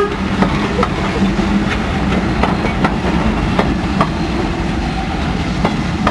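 Passenger coaches of a steam-hauled train rolling past, their wheels clacking unevenly over rail joints above a steady low rumble.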